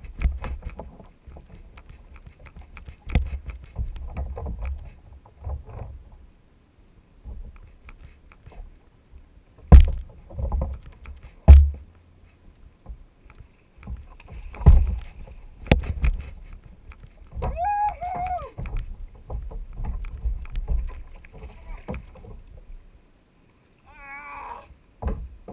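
Knocks, bumps and low rumbling handling noise on a plastic sit-on-top kayak while an angler fights a fish beside it. Two sharp knocks a little under halfway through are the loudest.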